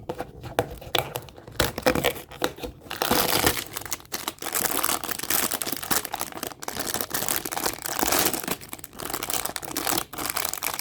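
Packaging crinkling and tearing as an advent calendar door is opened and a wrapped fortune cookie is taken out, with scattered crackles at first and dense, continuous crinkling from about three seconds in.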